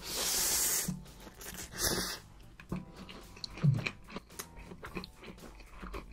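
A mouthful of dark stir-fried noodles being slurped in, a long slurp at the start and a shorter one about two seconds in, then wet chewing with many small clicks.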